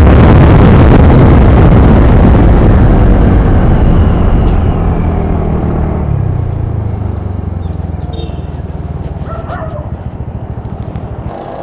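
Wind rushing over the camera microphone, with the single-cylinder engine of a TVS NTORQ 125 scooter, loud at top speed of about 98 km/h. The noise fades steadily as the scooter slows to walking pace, then drops away sharply near the end as it comes almost to a stop.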